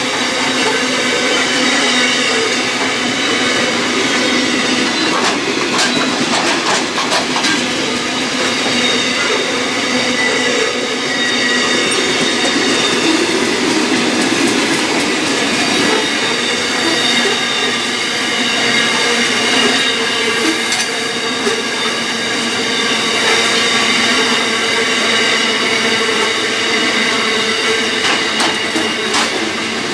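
Loaded CBH grain hopper wagons of a long freight train rolling steadily past at speed. The wheels keep up a continuous squeal, with rapid clatter over rail joints a few seconds in and again near the end.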